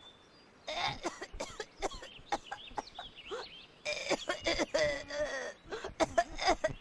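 A boy's voice sobbing and whimpering face-down on the floor in short, gasping, broken bursts. The sobs grow louder and come more often about halfway through.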